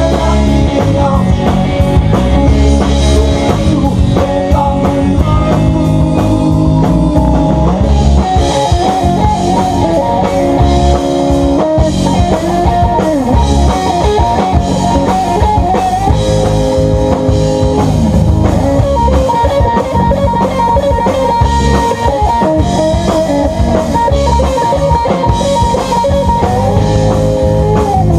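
Live rock trio playing an instrumental passage: an electric guitar lead with sustained, bent notes over bass guitar and drum kit.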